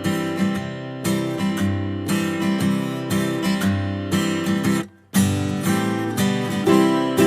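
Background music led by strummed acoustic guitar, with a short break about five seconds in.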